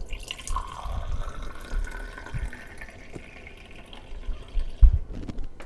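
Mint juice poured in a stream from a jug into a drinking glass, the pitch of the filling rising as the glass fills. A single thump near the end.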